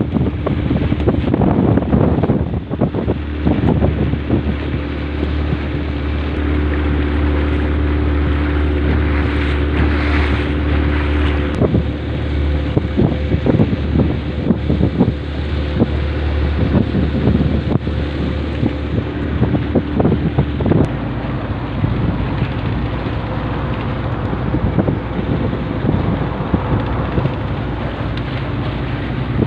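Small motorboat's engine running steadily under way, with wind buffeting the microphone and water slapping against the hull in the chop. The low engine note shifts about two-thirds of the way through.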